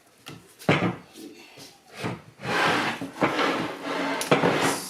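A BMW GM 6-speed automatic transmission valve body being pulled apart and handled: a knock early on, then a long stretch of scraping and rubbing of the parts, with another sharp knock near the end.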